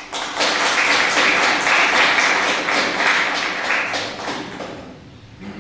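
Audience applauding: many hands clapping at once, dying away about four to five seconds in.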